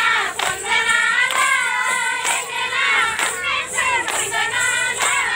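High-pitched women's voices singing a Bathukamma folk song together, kept in time by sharp strikes about once a second.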